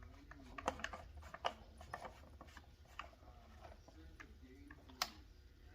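Faint, scattered clicks and light rubbing of small parts being handled by hand, about half a dozen quiet taps spread over a few seconds.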